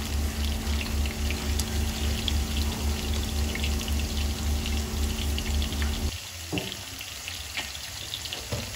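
Beef tendon simmering in oil and a little water in a frying pan: a soft, steady bubbling sizzle with small crackles. A low, evenly pulsing throb runs underneath and stops about two-thirds of the way through, leaving the sizzle quieter.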